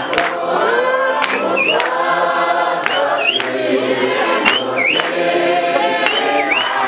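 A congregation singing together, with a sharp beat about once a second and short, high swooping calls over the singing.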